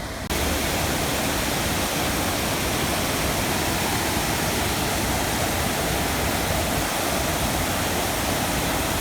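Steady rushing noise of water, even and unbroken, coming in abruptly just after the start.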